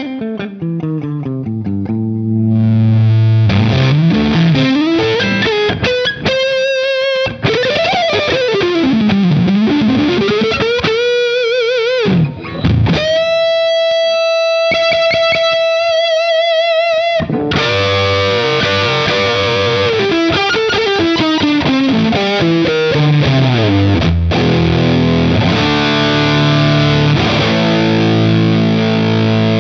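Electric guitar played through an Earthquaker Devices Acapulco Gold distortion pedal: loud, heavily distorted chords and riffs with string bends. About halfway through there is a long held lead note with vibrato, and steady chords near the end.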